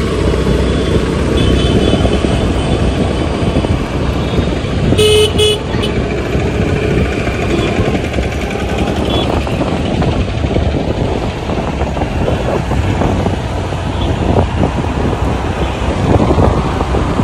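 Busy street traffic: car and motorcycle engines running in a steady rumble, with two quick horn toots about five seconds in and a few fainter horn beeps elsewhere.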